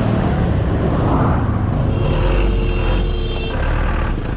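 Road noise while riding a Honda Click 125i scooter through slow, heavy traffic: a steady engine rumble from the scooter and the trucks and cars around it.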